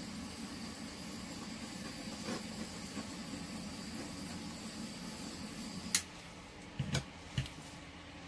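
Steady room hiss and low hum like a fan or air conditioner. About six seconds in, a sharp click is followed by the hiss dropping away, then three soft knocks close together.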